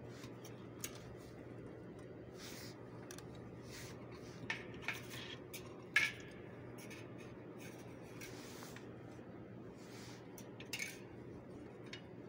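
Insulated wires handled and rubbed against the metal housing of a light fitting: faint rustling with scattered small clicks and taps, the sharpest tap about six seconds in, over a steady low hum.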